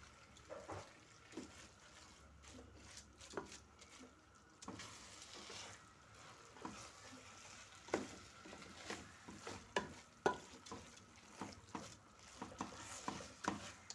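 A spoon stirring and scraping raw rice through the spiced onion base in a large sufuria, with irregular scrapes and knocks against the pot and a faint frying sizzle underneath. The rice is being fried in the masala before the water goes in.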